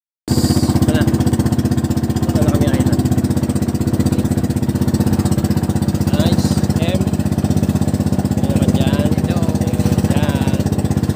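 A small engine running steadily close by, with a fast, even beat.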